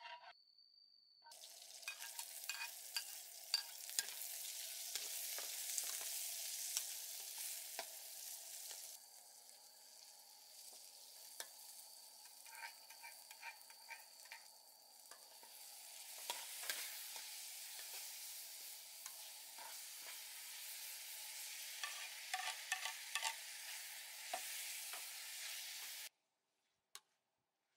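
Chili, garlic and sliced pork heart sizzling in hot oil in a wok, with a metal spatula scraping and clicking against the pan as it is stirred. The sizzle drops for several seconds about nine seconds in, builds again, then cuts off near the end.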